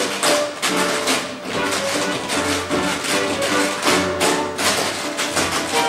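Upbeat show-tune instrumental music with a quick rhythm of sharp clacking taps over it, like typewriter keys or wood-block percussion.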